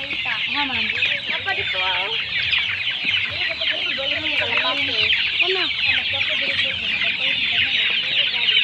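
A large flock of young chickens calling all at once: a dense, continuous chorus of high peeping over scattered lower, wavering clucks, as the birds crowd around feed being poured.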